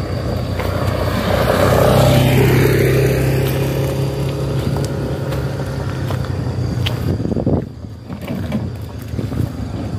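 A motorcycle riding slowly past at close range, engine running steadily, loudest about two seconds in and then fading. The sound drops away sharply near the end.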